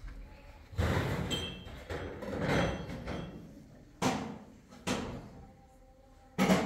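Handling noises: two longer scraping, rustling noises, then three sharp knocks in the second half.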